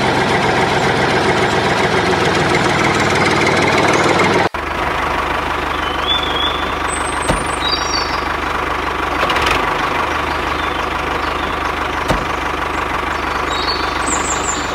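A tractor engine running steadily. The sound changes abruptly about four and a half seconds in, then carries on steadily.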